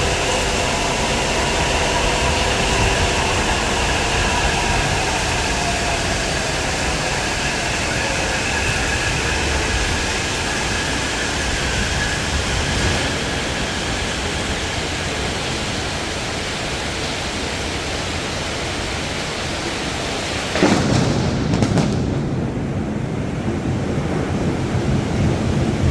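Heavy rain falls steadily throughout, and over the first ten seconds or so a metro train's electric motor whine glides down in pitch and fades away. About 21 seconds in, a sudden loud thunderclap breaks out and keeps rumbling.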